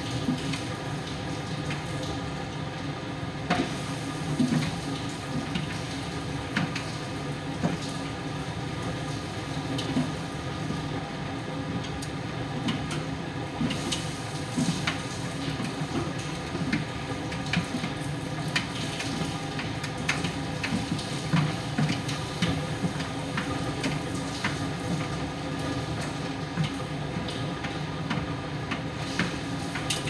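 Miele PT 5136 tumble dryer running in its drying phase: a steady hum of motor and fan as the drum turns, with irregular light clicks and knocks from the load tumbling inside.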